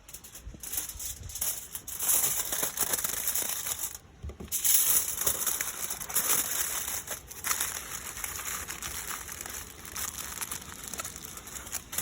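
Steady high sizzling hiss with scattered small crackles from cooking over a wood campfire. It cuts out briefly about four seconds in, then resumes.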